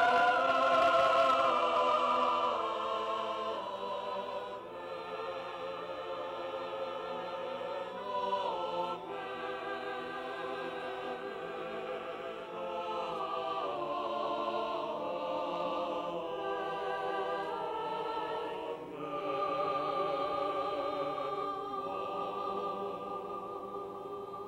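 Choir singing slow, held chords with vibrato, a sung response following the benediction. Loudest in the first couple of seconds, then softer.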